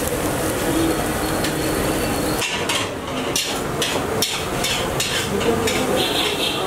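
Metal spatula stirring and scraping egg bhurji in a large iron kadai over the heat, with a steady frying noise. About two and a half seconds in, this gives way to a run of sharp metallic knocks, about three a second.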